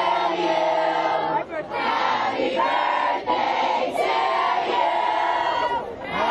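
A crowd of concert fans singing and shouting along together, many voices on held notes that break off every second or so.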